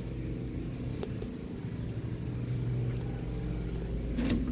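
Steady low mechanical hum, engine- or motor-like, holding an even pitch.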